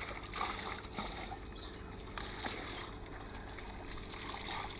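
Water poured from a plastic bowl splashing into a large steel basin, then trickling.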